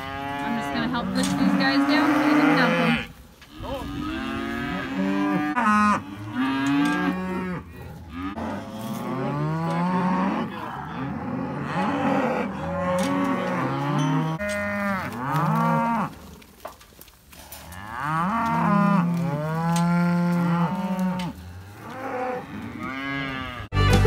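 A group of cows and calves mooing and bawling over one another, long drawn-out calls overlapping almost without pause, as calves are sorted off from their mothers for weaning. Music cuts in at the very end.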